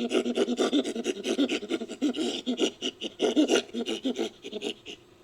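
Chimpanzee-style panting calls in a fast, breathy run of many short pulses, used as a creature sound effect; they thin out and fade near the end.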